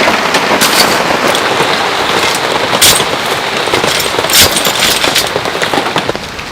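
Heavy rain falling, a dense hiss broken by frequent sharp, loud drop hits; it gets a little quieter near the end.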